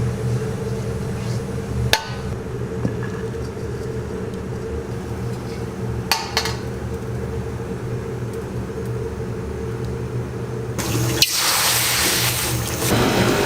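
A steady low mechanical hum with a few sharp metallic clinks, then near the end a loud sizzling hiss as food hits a hot pan while frying rice.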